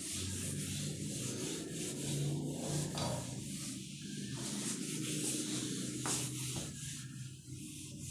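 Whiteboard eraser rubbing back and forth across a whiteboard, a continuous scrubbing as marker writing is wiped off.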